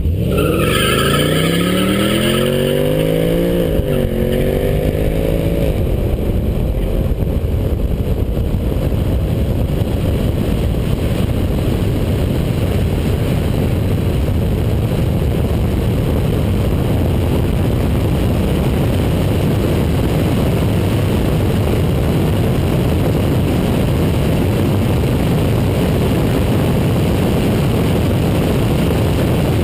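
BMW M5 E60's V10 launching hard, its pitch climbing steeply, dipping at a gear change about four seconds in, then climbing again. From about six seconds on, a loud, steady rush of wind and road noise over the car-mounted camera covers the engine.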